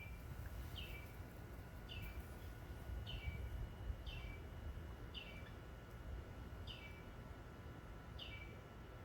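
A bird calling over and over, a short downward-sweeping note about once a second. Faint, over a low wind rumble.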